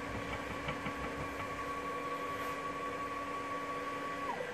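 Z-axis stepper motor of a Grizzly G0704 mill CNC conversion driving the head on its lead screw, a steady whine. Near the end the pitch falls as the motor slows to a stop.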